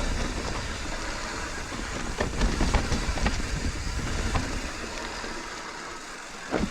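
Mountain bike rolling over rough trail: tyres rumbling, the bike rattling, and scattered sharp knocks from bumps. The rumble eases near the end.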